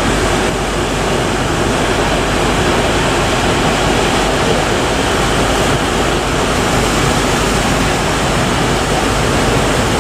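Steady, loud roar of heavy surf breaking.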